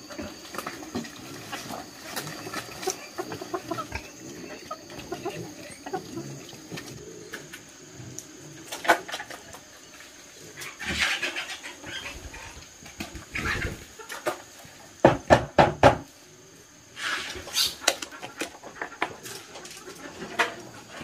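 Pigs feeding in a pen, low animal sounds and rustling, then a plastic scoop scraping and knocking against a metal pot as cooked mash feed is scooped out, with a quick run of sharp knocks a little past the middle.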